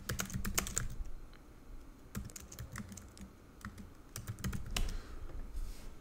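Typing on a computer keyboard: quick runs of key clicks, densest in the first second and again near the end, with sparser taps between.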